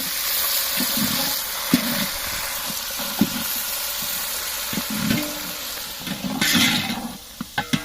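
Hot oil sizzling in a large cooking pot as soaked green peas fry with onions, mint and coriander, stirred with a few sharp knocks of the ladle against the pot. A louder rush of sizzling comes about six and a half seconds in.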